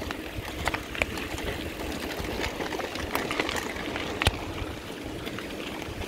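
Mountain bike rolling over a rough gravel track: a steady tyre rumble with scattered clicks and rattles from the bike, and one sharper knock about four seconds in.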